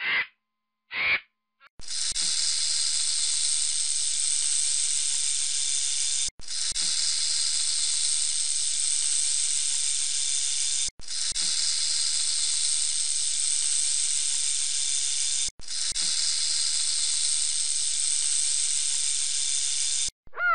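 Two short vulture calls, then a rattlesnake's tail rattle buzzing as a steady, even hiss in four stretches of about four and a half seconds, each separated by a brief break.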